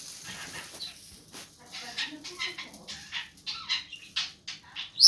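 Budgerigar chattering: a fast run of short clicks, chirps and warbled notes, ending on a loud high chirp.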